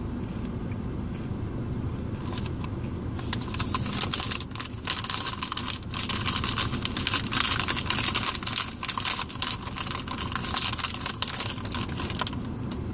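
Whole-grain corn tortilla chips being chewed close to the microphone: rapid, crisp crunching that starts about three seconds in and goes on until near the end, over a low steady hum from the car.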